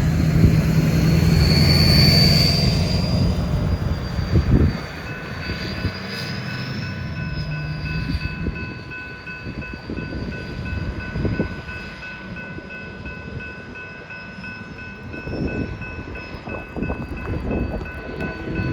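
Freight train passing. A diesel locomotive's engine is loud for the first few seconds and drops away about five seconds in, and the rolling cars follow with a high, wavering wheel squeal.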